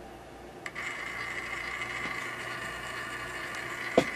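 Small DC motor from an HVAC damper actuator running off a 12 V battery, a steady whine that shows the motor still works. The whine starts with a click less than a second in, and a sharp click comes near the end.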